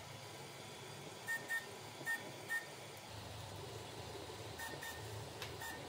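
FLSun Super Racer delta 3D printer running a print, faint: a low steady hum with short high chirps from its stepper motors, in quick pairs from about a second in and again near the end.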